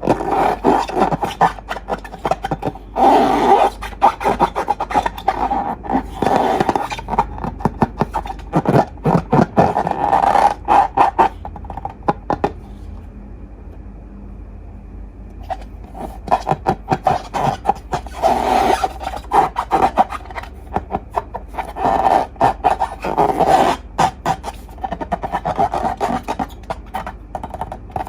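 Slime being squeezed and worked by hand, giving dense sticky clicking and crackling in repeated squishes, with a pause of a few seconds midway.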